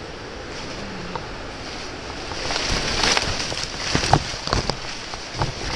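Leaves and stems rustling and brushing against the camera as someone pushes through dense streamside undergrowth, over the steady rush of a stream. The rustling grows louder and more crackly about halfway through.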